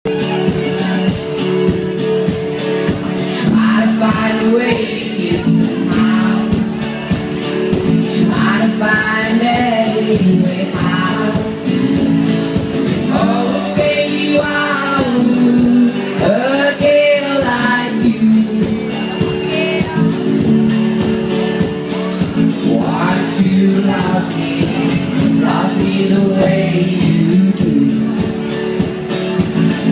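Male singer performing live with a strummed acoustic guitar, heard through a phone's microphone.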